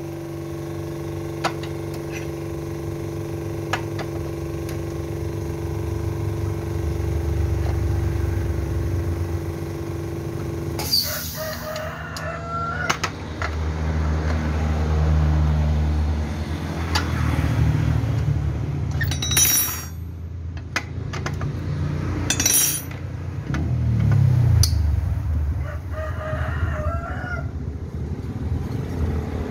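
A rooster crowing a few times over a steady low engine hum, with a couple of sharp metallic clinks from hand tools.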